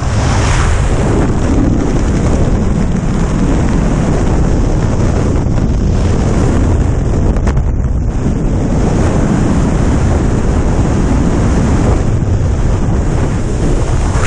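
Loud, steady wind rushing over the camera microphone as a skydiver spins under a parachute canopy caught in a severe line twist.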